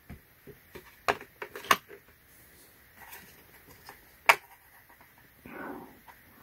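Steel Torx bit sockets clicking against one another and against a moulded plastic case as they are picked up and set into its slots: a few sharp separate clicks, the loudest about four seconds in.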